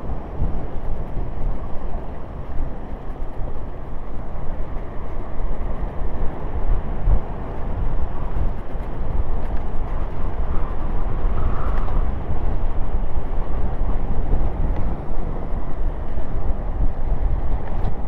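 Wind buffeting the camera microphone of a rider coasting downhill on a Trottibike scooter: a steady, rough rumble that keeps rising and falling in loudness.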